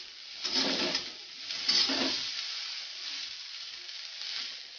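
Chopped onions sizzling in hot oil in a kadhai as they fry toward brown, with a metal spatula scraping and stirring them in two louder strokes in the first two seconds.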